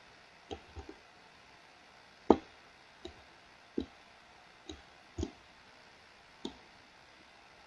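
Scattered single clicks of a computer mouse and keyboard, about nine at irregular intervals, the loudest about two seconds in.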